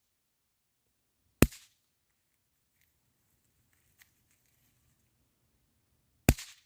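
Pyro Demon Pop Pops bang snaps going off: two single sharp cracks, one about a second and a half in and one near the end, with a faint tick in between.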